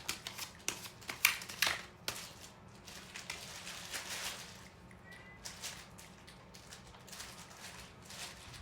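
A series of small sharp clicks and soft rustling, densest in the first two seconds and then sparser and fainter, with a faint brief chirp-like tone about five seconds in.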